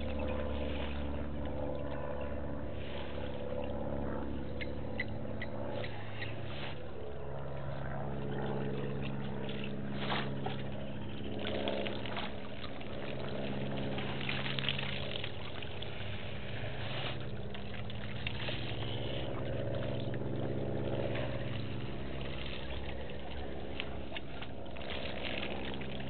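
Elephants drinking at a waterhole: water splashing and pouring as they draw it up with their trunks, with a few sharp splashes. Low, drawn-out rumbles, each lasting a few seconds, come and go underneath.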